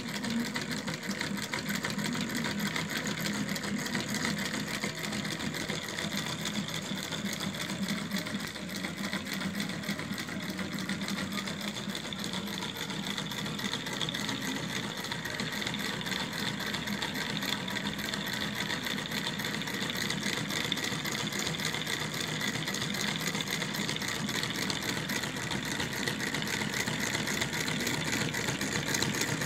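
Small model Stirling engine running steadily, its flywheel, crank and linkages making a fast, even mechanical clatter.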